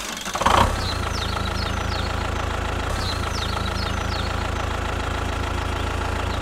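An engine idles with a steady, even hum that starts with a louder onset about half a second in. Two short groups of high, falling chirps sound over it, about a second in and again about three seconds in.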